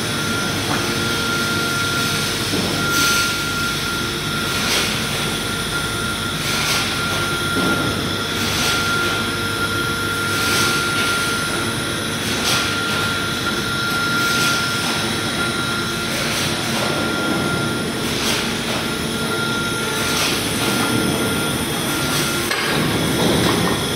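DP-FP-3000BN automatic roll mesh welding machine running: a steady mechanical hum with a thin high whine, and regular sharp clacks repeating every second or so as the machine cycles through its welds.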